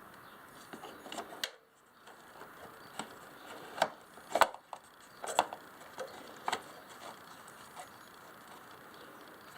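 Handling noises as parts are fitted around a motorcycle battery: a series of sharp clicks and knocks, loudest in the middle, between short pauses.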